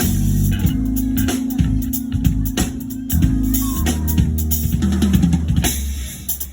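Background music with a drum kit and a steady beat over held bass notes.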